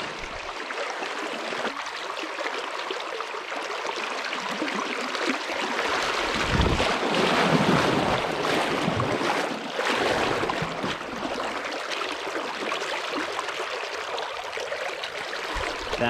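Fast, shallow river riffle rushing and churning close to the microphone, with gusts of wind buffeting the microphone, strongest about seven seconds in and again around ten seconds.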